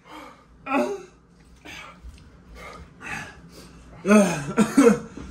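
A man gasping and blowing out short, sharp breaths, with a louder vocal outburst about four seconds in. He is reacting to a burning mouth after eating an extremely hot chili chip.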